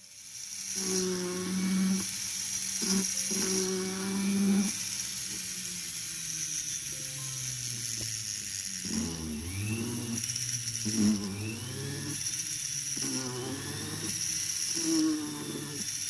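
A jeweller's small rotary tool giving a steady high whine as its burr cuts the metal prong setting of a ring. Melodic background music plays underneath.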